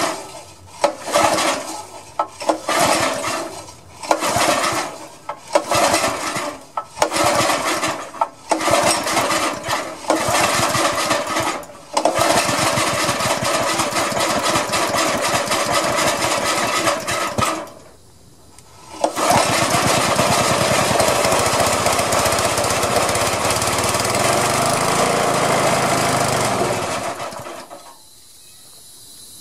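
Honda 5.5 hp single-cylinder engine on a gas air compressor catching on the pull rope and running rough, in choppy bursts, for about ten seconds, then settling into steady running with a brief dip about two-thirds through. It stops near the end.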